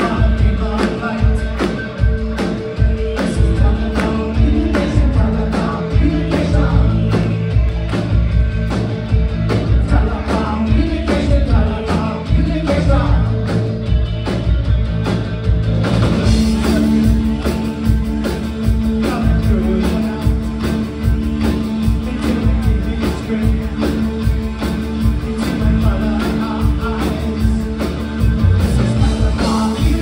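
Live rock band playing new wave: drums, electric guitar, bass and keyboards with a lead vocal, heard from the audience. The music gets fuller and brighter about halfway through.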